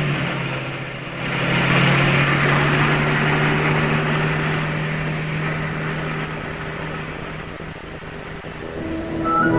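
Small boat's outboard motor running at speed with a steady pitch, fading as the boat pulls away across the water.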